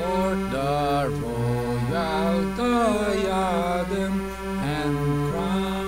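A voice singing the bass part of a four-part hymn a cappella, over steady, held chord notes that change every second or so.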